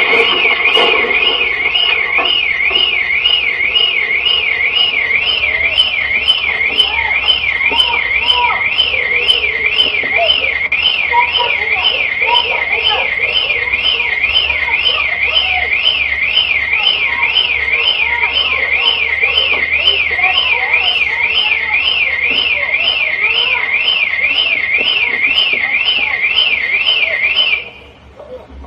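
Car alarm wailing after a collision: a loud electronic tone sweeping up and down about twice a second, cutting off suddenly near the end.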